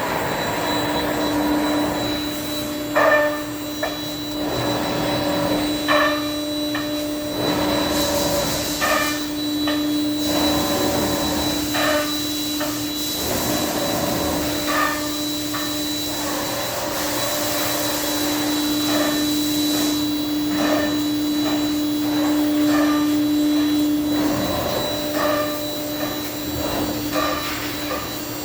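Thermwood CS-45 CNC router running, with a steady whine from the spindle and repeated clicks and knocks. A high hiss joins in from about eight seconds in and stops about twelve seconds later.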